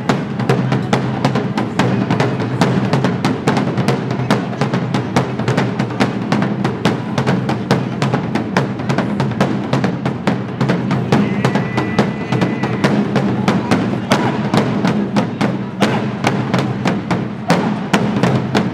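A band of drummers beating big wooden-shelled bass drums and snare drums together in a fast, steady beat, with no bagpipe melody over it.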